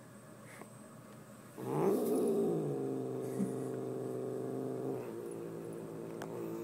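Domestic cat giving a long, low growl that starts with a brief rise and fall in pitch, holds steady for a few seconds, then goes on more softly. It is a possessive warning while the cat guards a sweater it is mouthing.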